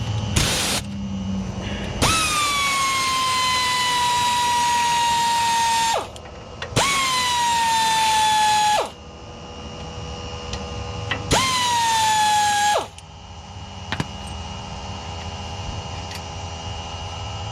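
Handheld power tool running in a brief burst and then three long runs, its motor whine sagging slightly in pitch through each run, as it spins bolts off the front suspension.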